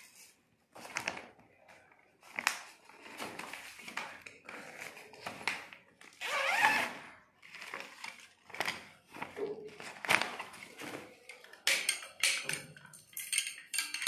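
Plastic packaging crinkling and rustling in irregular bursts as badminton racquets are handled and pulled out of a bubble-wrap bag and cover. A quick run of light clicks and taps comes near the end.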